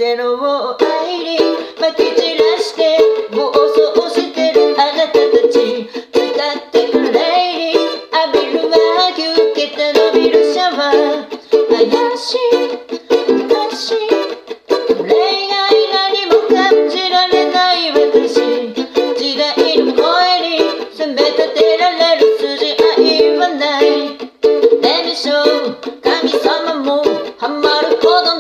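Ukulele strummed in a quick, steady rhythm of chords.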